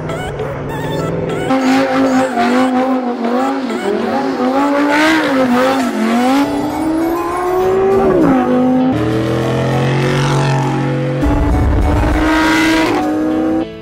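Engines revving hard during donuts and a burnout, their pitch swinging up and down, with tyre squeal and background music underneath. About eight seconds in the revs climb and then drop sharply, and steadier engine tones follow.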